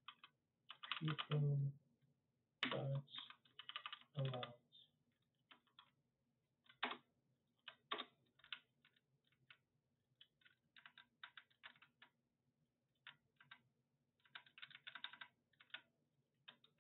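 Typing on a computer keyboard: irregular bursts of keystroke clicks, the heaviest in the first four seconds.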